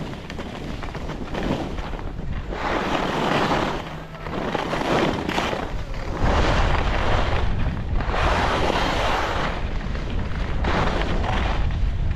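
Skis scraping across hard-packed artificial snow, a swelling hiss with each turn, three times. Under it, wind buffets the microphone, heavier from about halfway through.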